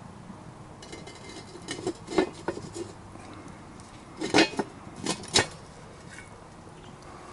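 Cast iron Dutch oven lid knocking and clinking against the pot as it is handled. There is a cluster of clanks about two seconds in and a louder cluster of about four clanks a little past the middle.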